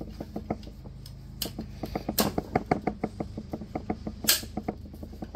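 Rapid light clicking, six to eight clicks a second, with a few louder sharp clicks about one and a half, two and four seconds in.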